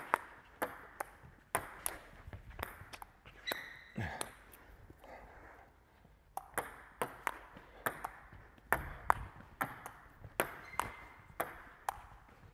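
Table tennis rally: the ball clicking off the bats and bouncing on a Joola table, about two to three hits a second. The rally stops for about two seconds near the middle, then a new rally starts.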